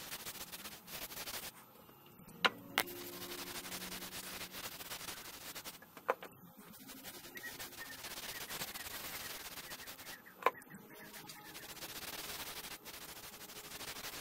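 Paper towel rubbing Osmo oil into a sapele bowl turning on a wood lathe: a hiss that comes and goes in stretches, with four sharp clicks.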